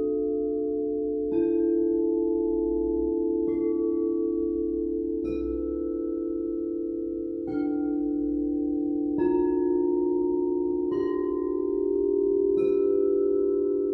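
Crystal singing bowls struck one after another, about every two seconds, seven strikes in all. Each strike rings out with a bright overtone that fades, while the deeper tones of several bowls keep ringing together underneath as a continuous drone.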